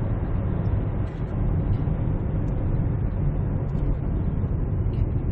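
Steady in-cabin road and engine noise from a 2012 Hyundai Santa Fe CM diesel SUV cruising along the road, a low, even rumble.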